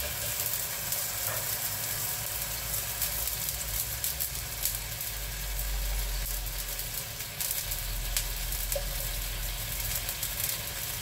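Broth in a steel wok sizzling and simmering as the liquid from a can of abalone is poured in. There are a few light clicks of the can and spatula against the wok, over a low steady hum.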